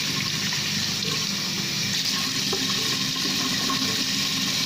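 Tap running steadily into a sink while water is splashed onto the face to wet it before washing.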